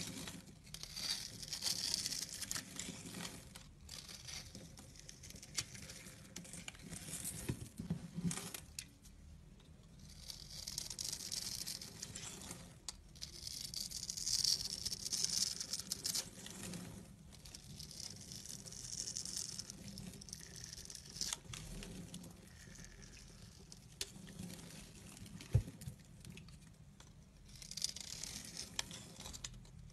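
A small blade cutting into a bar of dry soap scored in a fine grid, shaving off tiny cubes with a crisp, crackly scraping. The scraping comes in stretches of a second or few, with quieter gaps between strokes.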